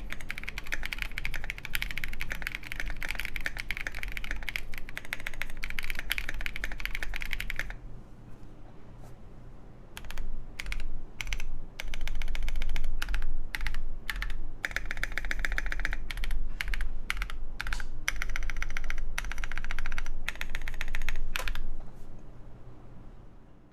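Mechanical keyboard typing on a KindleStar Orion 87 with lubed Boba U4T tactile switches, a polycarbonate plate and KAT Mizu keycaps. Fast continuous typing for about eight seconds, a short pause, then slower separate keystrokes and short runs of keys that stop near the end.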